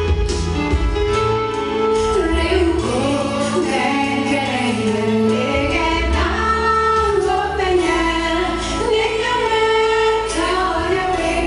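A small vocal group, mostly women's voices, singing a song in harmony over a steady instrumental accompaniment.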